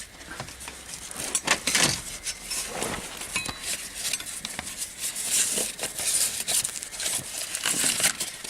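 Hands rummaging among wiring and hoses in an engine bay, feeling for loose connectors: rustling and scraping with scattered light clicks and clinks.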